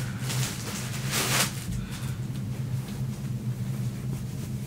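Packaging rustling as a T-shirt is unwrapped and pulled out, with one louder rustle a little over a second in, over a steady low hum.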